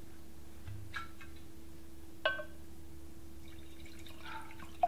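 Red wine glugging from a bottle into a stemmed wine glass, filling it, from a little past the middle on. A sharp, ringing glass clink comes about two seconds in, and another just before the end.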